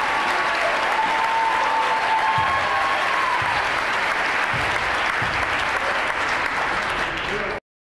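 A crowd applauding in a gym, with voices calling out over it and a basketball bouncing on the floor a few times. The sound cuts off suddenly near the end.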